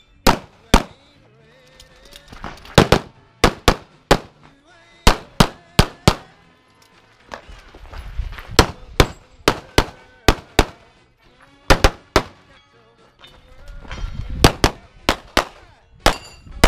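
Rapid pistol fire from a practical-match stage: about two dozen shots, mostly in quick pairs a quarter-second apart, in strings separated by short pauses while the shooter moves between positions. A low rumble comes up in two of the pauses.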